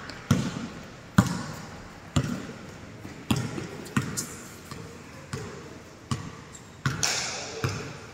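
A basketball being dribbled on the court floor, bouncing about once a second with a sharp echoing thud each time.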